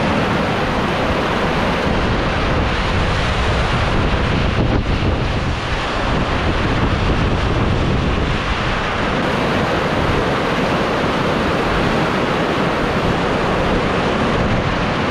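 Heavy rain pouring onto corrugated metal roofs, a steady loud rush with no letup, with wind rumbling on the microphone.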